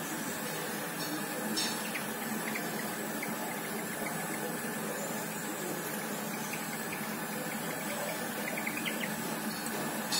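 A steady, even hiss with a faint low hum underneath and a couple of faint ticks: the kitchen's background noise beside a gas stove, with no distinct sound from the oil being poured.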